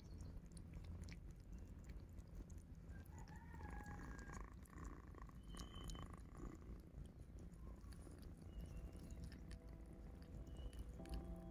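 Kittens eating from a small plastic tub, faint and close, with scattered soft lapping clicks over a low, steady purr.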